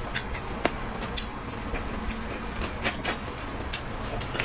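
Eating sounds: irregular sharp clicks and crunches of someone chewing food at close range.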